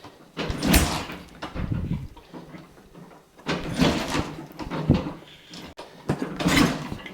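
1969 Triumph Trident's three-cylinder engine, heard in about five irregular bursts roughly a second long with gaps between, as it is kicked over after the carburettors are tickled and fires briefly without settling into a steady run.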